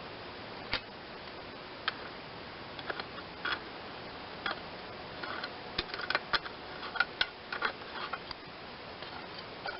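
Light, irregular clicks and taps of hand tools and small metal parts on a lawn tractor's Onan twin-cylinder engine as the air cleaner cover nut and cover are worked off. The clicks come thicker about halfway through, over a steady background hiss.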